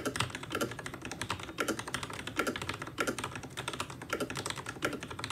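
Fast typing on a Ducky Shine Zero mechanical keyboard: a steady stream of keystroke clicks and clacks, several a second.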